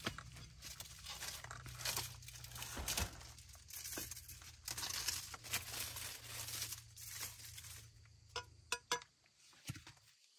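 Rustling and crackling with many sharp clicks and knocks, thinning to a few scattered clicks after about eight seconds.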